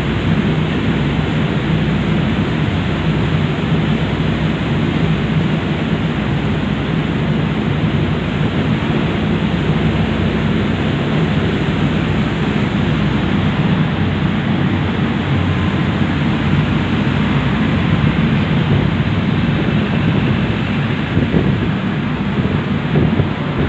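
A passenger ferry's engines drone steadily under way, with wind buffeting the phone's microphone.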